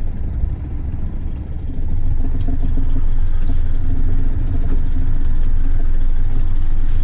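Boat engine running with a steady low rumble, growing louder about two seconds in and then holding steady.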